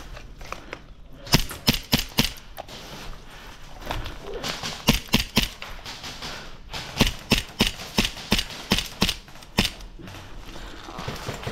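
Airsoft guns firing in three strings of quick single shots, about three shots a second, each a short sharp snap.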